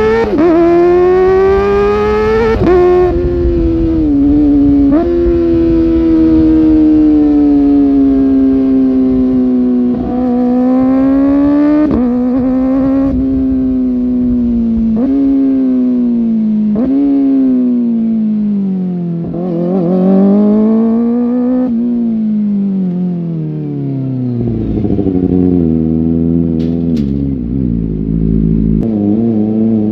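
Kawasaki ZX-4R inline-four engine under acceleration, its pitch climbing and then dropping sharply at each quick upshift. It then slows with brief throttle blips on the downshifts and runs at lower, rougher revs near the end.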